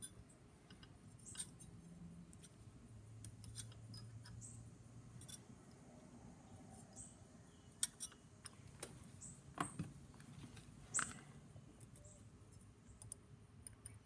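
Faint, scattered small clicks and taps of fingers and a small hand tool on the metal parts of an Edison Diamond Disc reproducer as the stylus assembly is fitted, with a few sharper clicks in the second half, over a low steady hum.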